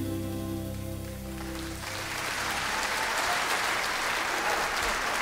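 The final held chord of a live song with an orchestra fades out, and about two seconds in an audience breaks into applause that carries on steadily.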